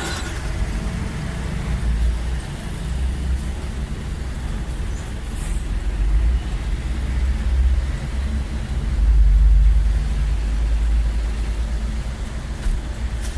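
Motor vehicle running, a deep rumble that swells and eases, loudest about nine to ten seconds in.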